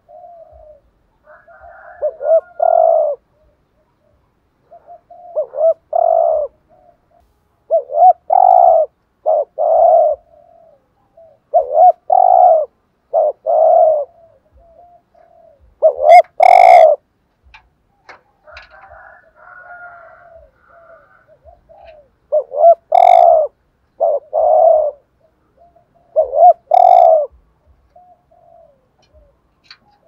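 Spotted dove cooing close up: loud phrases of two or three low coo notes, repeated every few seconds.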